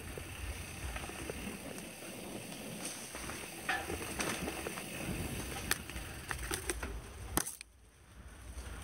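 Mountain bike rolling fast over a rough dirt trail: a steady rumble of tyres and air, with scattered clicks and rattles as it goes over bumps. It dies down for a moment near the end, then picks up again.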